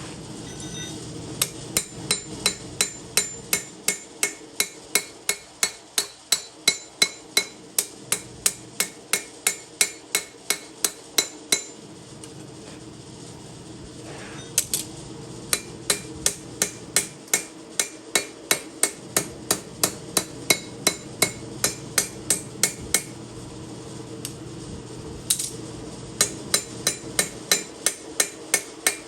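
Hand hammer forging a steel chef knife blade on an anvil: quick, even ringing blows at about three a second, in three runs with two short pauses between them.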